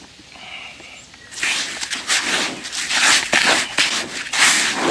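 Water poured into a bucket of dry groundbait, splashing in loud, irregular gushes that start about a second and a half in.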